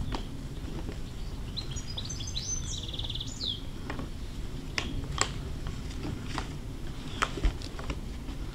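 A bird sings a short phrase of high chirps ending in a quick trill about two to three seconds in. Sharp taps and knocks come every second or so as German shorthaired pointer puppies tussle over a football, the loudest about five and seven seconds in, over a steady low rumble.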